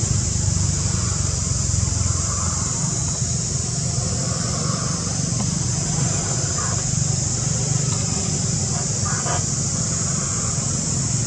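Steady outdoor background noise: a constant low rumble under a continuous high hiss, with a couple of faint brief sounds late on.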